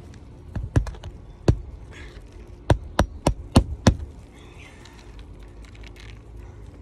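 Hammer driving roofing nails into an asphalt shingle: a few separate strikes, then a quick run of five blows about three a second.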